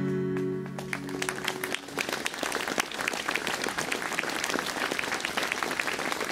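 An acoustic guitar's final chord rings out and fades at the close of a song. About a second in the audience starts clapping, and the applause carries on steadily.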